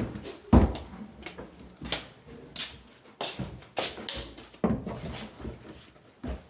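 Irregular thumps and rustles, about a dozen, of cattle feed being handled and packed into a container.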